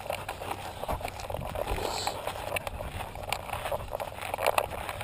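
Handling noise of an action camera strapped to a walking dog's harness: rustling and scuffing, with irregular clicks and knocks as the dog moves on a dirt trail.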